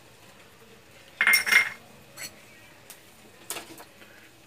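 Kitchen utensil and pan handling: one short clatter a little over a second in, then a few light clicks and knocks.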